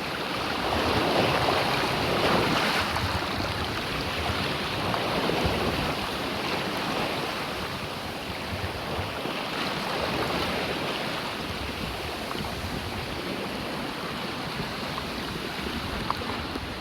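Sea water rushing and splashing past a sailboat under way, with wind buffeting the microphone; a steady wash, a little louder in the first few seconds.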